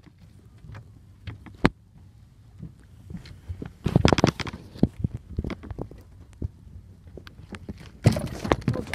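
Knocks and rattling clatter of things being moved in a small aluminum fishing boat: one sharp knock just before two seconds in, then busier bursts of knocking about four and eight seconds in.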